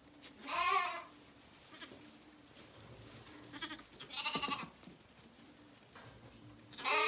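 Lambs bleating: three wavering calls, about half a second in, about four seconds in, and right at the end. The last call falls in pitch.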